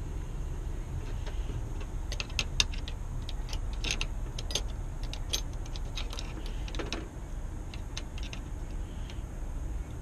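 Small metal clicks and clinks from the internal parts of an opened Sargent mortise lock body being handled and fitted, most of them between about two and seven seconds in. A steady low rumble runs underneath.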